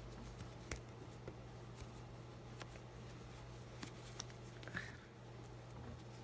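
Faint rustling of plush fabric and small handling clicks as fluffy white doll clothes are worked onto a stuffed plush doll, over a steady low hum.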